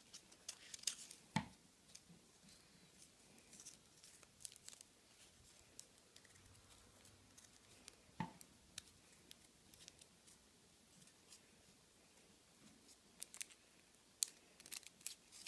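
Scissors cutting through folded paper: faint, scattered sharp snips. Two louder snips come about a second and a half and about eight seconds in, and a quicker run of snips comes near the end.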